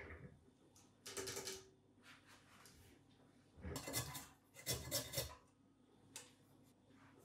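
Food being grated by hand on a metal box grater, in a few short rasping scrapes with pauses between.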